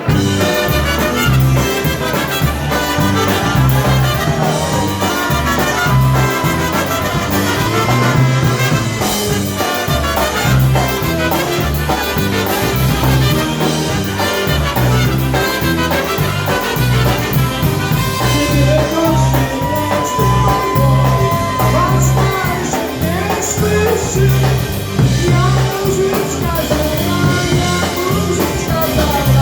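Live polka band playing a polka, striking up right at the start. A bass alternates between two notes in a steady oom-pah beat, with held melody lines above.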